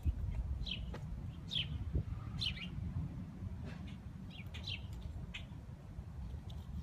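Small birds chirping: short, high chirps, each falling quickly in pitch, repeated about once a second over a low steady rumble.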